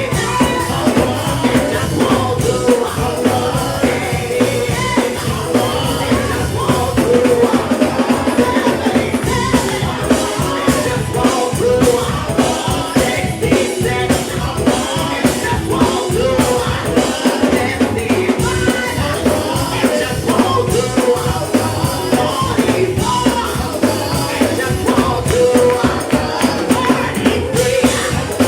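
Live gospel worship music with a steady beat: drum kit, tambourine and other instruments under singing.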